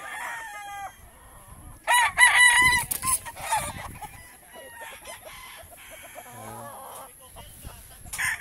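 Gamefowl roosters crowing. The end of one crow fades out at the start, a loud crow of about a second and a half comes about two seconds in, softer calls follow, and another crow starts at the very end.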